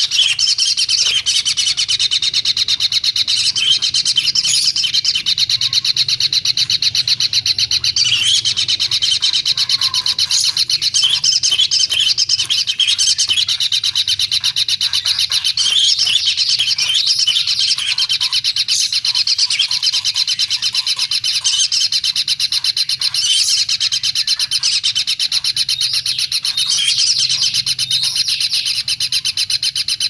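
Nestling bird calling without pause: a rapid, raspy, high chatter with louder swells every few seconds, typical of a begging chick.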